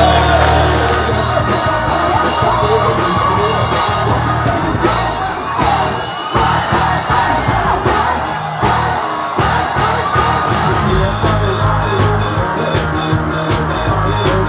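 Loud music with singing, and a crowd yelling and whooping; a steady beat stands out near the end.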